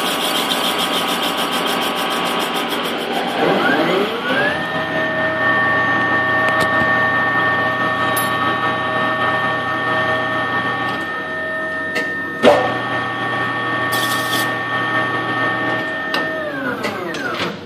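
Microkinetics 1236 CNC lathe running through a light finish pass on an aluminium ring. About three and a half seconds in, a motor whine rises in pitch and holds steady, then winds down near the end. There is a single sharp click a little past the middle.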